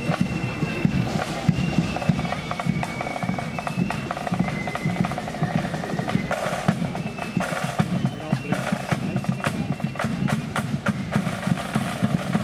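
Marching flute band playing a march: a high flute melody over rapid snare drum rolls and steady bass drum beats.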